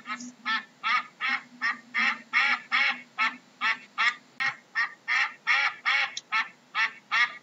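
Duck quacking over and over in a steady, rhythmic series of short, nasal calls, about two to three a second.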